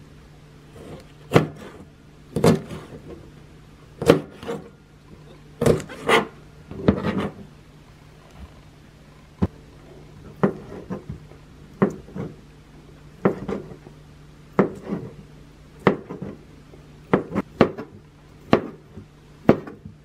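A kitchen knife chopping on a plastic cutting board, cutting crisp winged beans and then sausage into pieces. Each stroke ends in a sharp tap on the board, at irregular intervals of roughly one a second.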